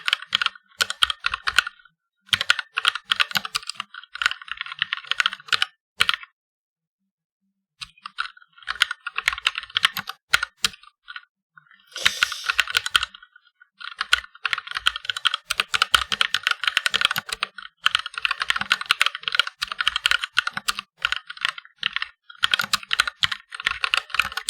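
Fast touch typing on a mechanical keyboard with red (linear) key switches: rapid runs of key clacks in bursts, with short pauses and one longer pause about six seconds in.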